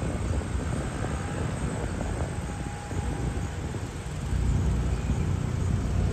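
Heavy diesel engines running in a low steady rumble, growing louder about four seconds in.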